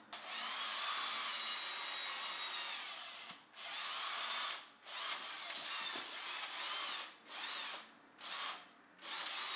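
Power drill whirring, first in one long run of about three seconds and then in a string of short bursts of about a second each. Its motor whine rises and falls in pitch.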